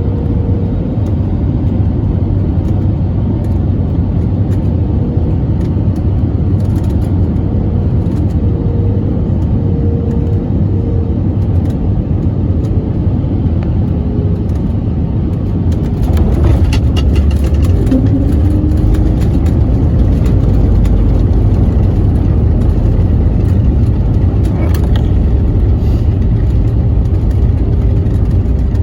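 Cabin noise of an Airbus A320neo landing: steady engine and airflow noise, then about halfway through a few sharp jolts and a step up into a louder, deeper rumble as the wheels touch down and roll out on the runway, with no thrust reversers used.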